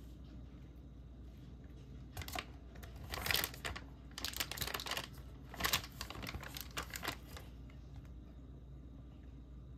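Packaging being crinkled and rustled in a run of short bursts, from about two seconds in until about seven and a half seconds in.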